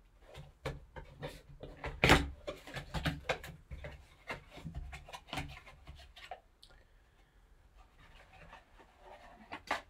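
A cardboard box being opened by hands in nitrile gloves: irregular crinkles, taps and rustles of the flaps, loudest about two seconds in and thinning out in the second half.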